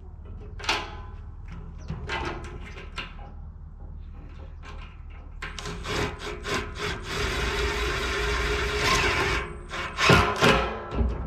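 Metal parts knocking and clattering as they are handled. Then a power tool runs steadily for about four seconds, followed by a few sharp knocks near the end.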